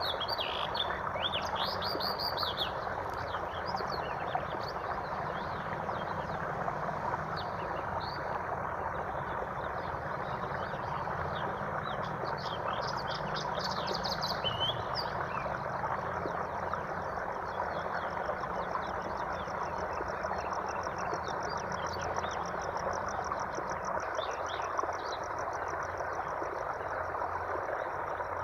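Steady rush of running water with birds chirping and calling over it, including a fast pulsing trill for a few seconds past the middle.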